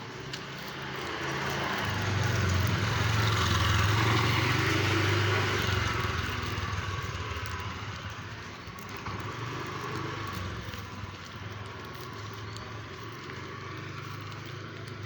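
A road vehicle passing close by: engine hum and tyre noise swell over a few seconds and fade away. A lower steady traffic noise stays behind.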